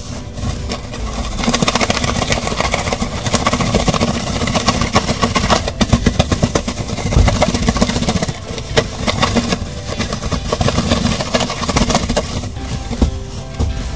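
Plastic bag of chicken wing pieces and flour being shaken and patted repeatedly onto a folded towel: crinkling plastic with a run of soft, quick thuds ("pon pon"), busiest through the middle and easing off near the end.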